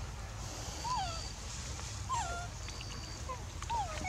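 Baby macaque whimpering: four short, thin calls about a second apart, each rising and then falling in pitch, with two close together near the end. A thin high whistle repeats between them over a low rumble.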